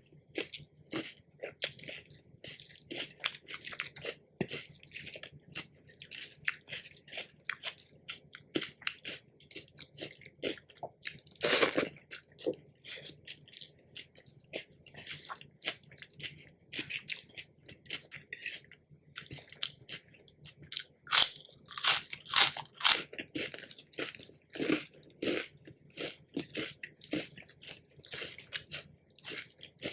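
A person biting and chewing crunchy food close to the microphone: a steady run of short crisp crunches, with louder bites about twelve seconds in and again around twenty-one to twenty-three seconds.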